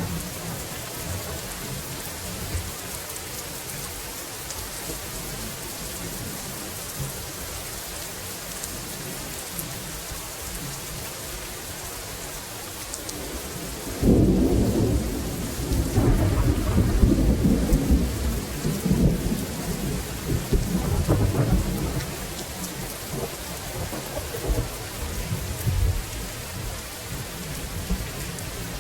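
Steady rainfall hissing, with a thunderclap breaking in suddenly about halfway through and rumbling on in swells for several seconds before fading back under the rain.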